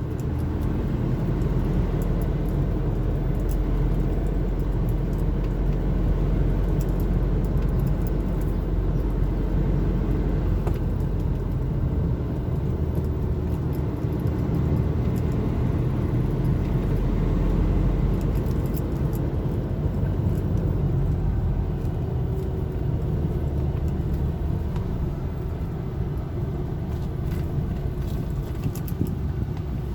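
Car driving along, heard from inside the cabin: a steady low engine and road rumble, with occasional faint ticks.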